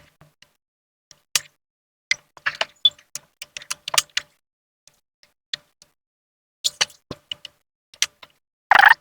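Scattered small clicks and taps of hands fitting and seating plastic ink tubes and fittings of an ink supply system, irregular and uneven in loudness, clustered about two to four seconds in and again near seven seconds in.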